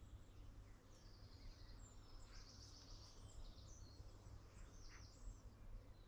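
Faint songbird song: a run of high chirps and trills about two to three seconds in, with a few single calls after, over a low steady rumble of background noise.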